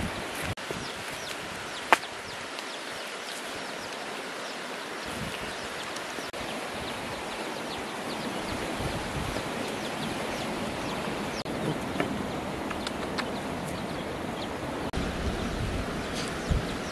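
Dogs eating eggs from a bamboo trough: small clicks and mouth sounds over a steady outdoor hiss, with one sharp click about two seconds in.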